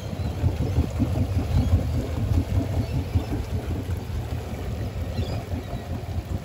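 Crownline 275 CCR cabin cruiser's sterndrive engine running at low speed as the boat turns slowly, a low, uneven rumble.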